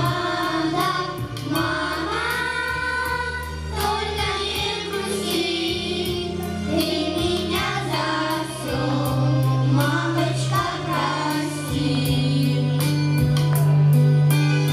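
A group of children and adults singing a song together into microphones over an amplified backing track with a held bass line and a steady beat.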